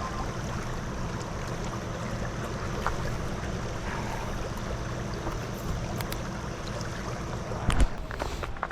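Steady rush of flowing stream water, with one sharp knock near the end.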